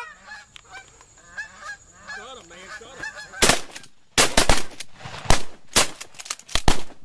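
Geese honking, then a rapid volley of around ten shotgun blasts from several hunters firing at the flock, starting about three and a half seconds in.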